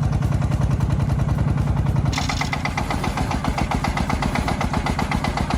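Vehicle engine running with a rapid, even chugging. About two seconds in the sound changes abruptly and a higher, rhythmic clatter joins in.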